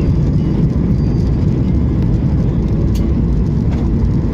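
Cabin noise of a Boeing 737 MAX 8 rolling on the ground just after landing: a loud, steady, low rumble of engines and wheels, heard from inside the cabin at a window seat.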